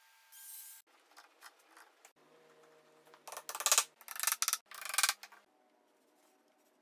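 Wooden Domino tenons being handled and pushed into their mortises: light clicks, then three short, loud scraping rubs about half a second apart, each ending in a knock.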